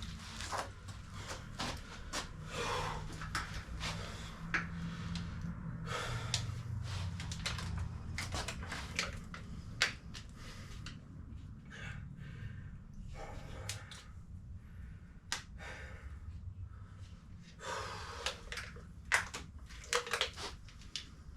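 A man breathing hard and panting between sets of heavy exercise, with scattered clicks and knocks and a low steady hum.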